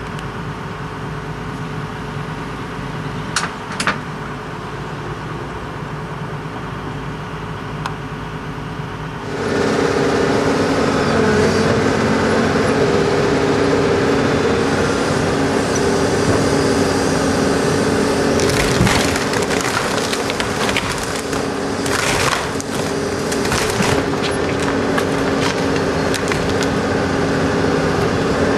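Demolition of an old cricket scoreboard: a heavy machine's engine runs steadily and gets abruptly louder about nine seconds in. Later there are cracking and crunching sounds as the structure is broken up.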